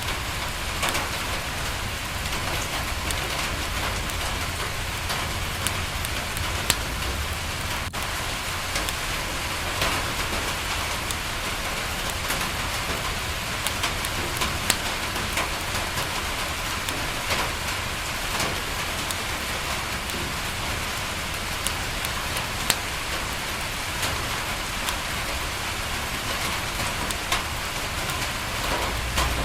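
Steady rain falling on a window, mixed with a fireplace crackling: an even hiss broken by scattered sharp pops and ticks.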